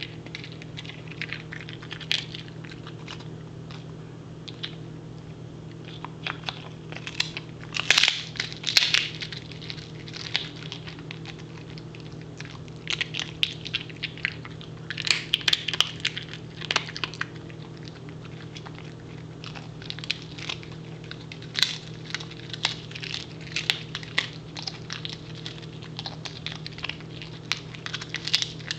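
Pembroke Welsh Corgi chewing a dehydrated duck foot: bouts of crisp crunching with short pauses between, loudest about eight seconds in, over a steady low hum.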